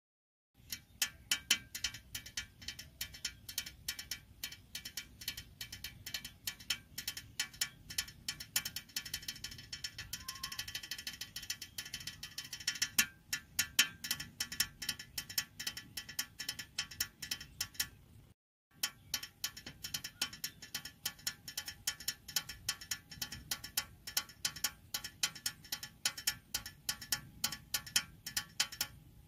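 Small plastic toy helicopter rattling and clicking rapidly as it is pushed along on its wheels, a dense ratchet-like run of many small clicks that stops briefly about two-thirds of the way through.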